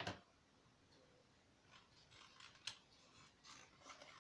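Small children's scissors cutting a sheet of red craft material: a few quiet snips spread through, with a sharper click at the start and another a little before three seconds.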